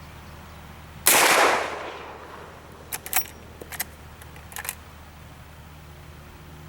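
A single shot from a Marlin 1894S lever-action rifle in .44 Magnum, a sharp blast about a second in that rings out for about a second. A few seconds later come three quick groups of metallic clicks, the lever being worked to eject the spent case and chamber the next round.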